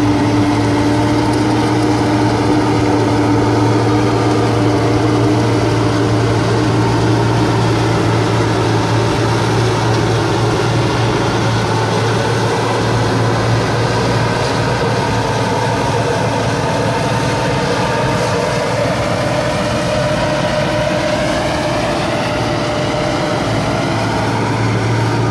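John Deere CTS combine harvester running steadily while harvesting soybeans: a continuous engine drone with a strong low hum and a few steady held tones above it, a little quieter in the second half as the machine draws away.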